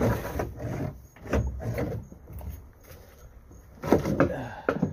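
Old boat steering cable being dragged out through the hull, scraping and knocking against the fiberglass and wood in irregular bursts, with the loudest knocks near the start and about four seconds in.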